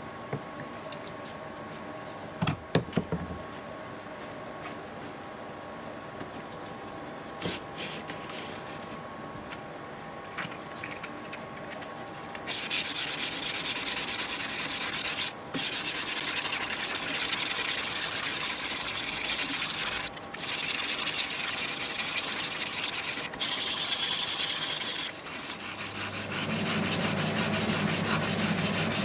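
Hand-sanding the flat of a hardened steel nakiri blade with abrasive paper: rapid back-and-forth scraping strokes that start about twelve seconds in and run with a few brief pauses. Before that there is only a steady hum and a few light handling clicks.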